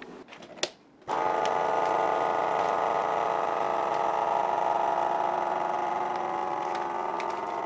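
Countertop vacuum sealer's pump running steadily, drawing the air out of a plastic bag of muffins before sealing; it starts about a second in.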